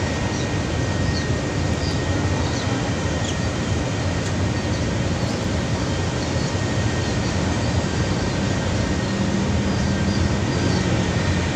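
Steady outdoor rushing noise with a low rumble underneath, even in level and with no single event standing out: the ambience of a wide, flowing city river with traffic around it.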